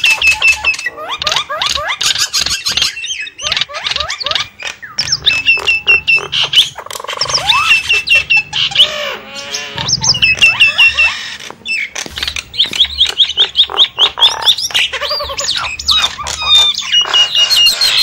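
Javan mynas calling noisily: a rapid, overlapping run of squawks, whistled chirps and clicking chatter, broken by brief lulls about three and eleven seconds in.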